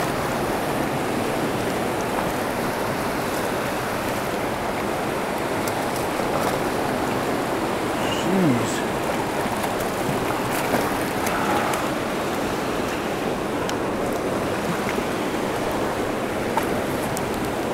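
Fast-flowing river rushing steadily over rock.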